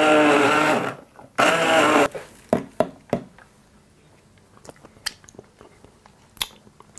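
Hand blender run in two short bursts in a steel pot of walnut sauce: a whining motor with a churning, liquid sound, the first about a second long, the second a bit shorter. After that come quiet spoon clicks and taps against the pot.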